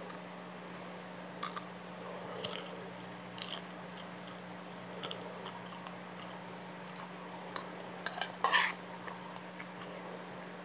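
A mouthful of crispy chicharon bituka (deep-fried pork intestine) being bitten and chewed close to the microphone: irregular crunches and small wet mouth clicks, the loudest crunch about eight and a half seconds in. A steady low hum sits underneath.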